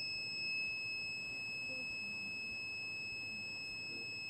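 A small electronic sound-source module giving one steady, high-pitched beep tone without a break.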